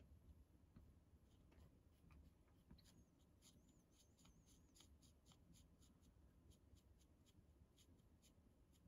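Faint ticking and scratching of a hand pin vise drill bit being twisted into a plastic model part, coming as a run of small quick ticks from about a third of the way in.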